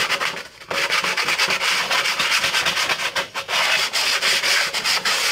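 Sandpaper rubbed by hand over plywood in quick back-and-forth strokes, a dry, scratchy hiss, with a brief pause about half a second in.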